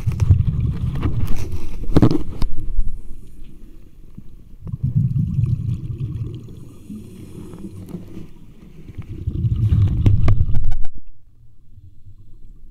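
Scuba diver's exhaled bubbles rushing from the regulator, heard underwater: a low rumble in three swells about five seconds apart, with quieter stretches between, and a few sharp clicks.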